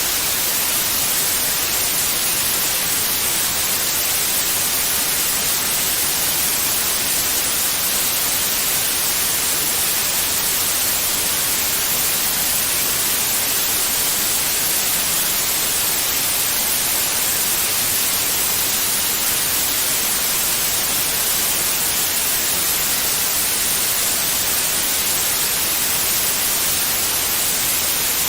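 Steady white noise: an even, hiss-like static, strongest in the high frequencies, that does not change.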